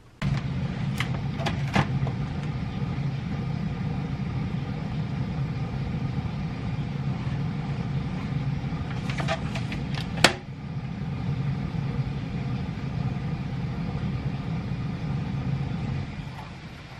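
A steady low motor hum that starts abruptly and drops away about a second before the end, with several light clicks and taps over it, the sharpest about ten seconds in.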